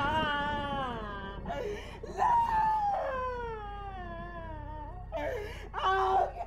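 A woman wailing and crying in anguish: two long drawn-out cries that slide down in pitch, then short broken sobbing cries near the end.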